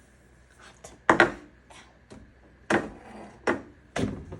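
Four sharp knocks and clunks, the first about a second in and the rest spread over the next three seconds, of kitchen things such as a small bowl being handled and set down.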